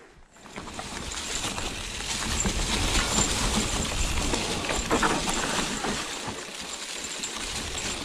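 Hardtail e-mountain bike rolling over dry leaves and roots: a steady rush of tyre and wind noise on a chest-mounted action camera's microphone. A few sharp knocks and rattles come from the bike as it hits roots, the clearest near the middle.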